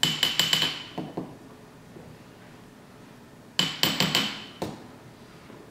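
Glass espresso tamper tapped against a metal portafilter: two quick runs of about five sharp clinks, one at the start and one about three and a half seconds in, each with a short ringing note, and a few single taps between.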